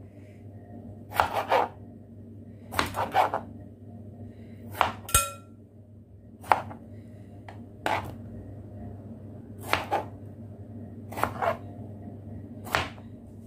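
A kitchen knife slicing through a tomato and knocking down on a plastic chopping board: about nine short knocks, some doubled, spaced a second or two apart, over a steady low hum.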